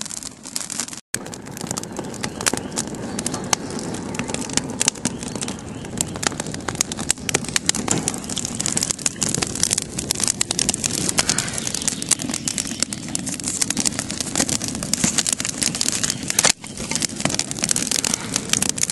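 Wood fire of small twigs and sticks burning briskly inside a stacked-stone oven, crackling steadily over a constant rush of flame.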